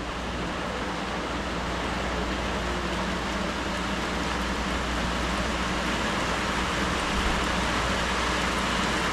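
Steady rain falling, a dense even hiss that grows slightly louder.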